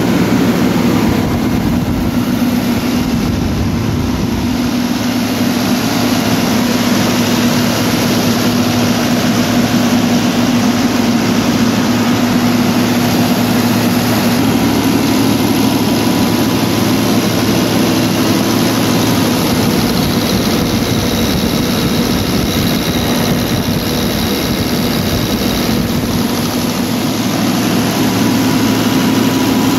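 Volvo D9 six-cylinder diesel engine of a generator set running steadily, its pitch stepping up slightly about halfway through.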